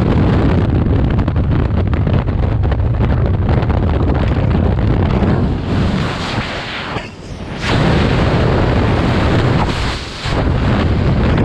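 Freefall wind rushing over a skydiver's helmet-mounted camera microphone, a loud steady rumbling roar. It dips briefly about seven seconds in and again about ten seconds in.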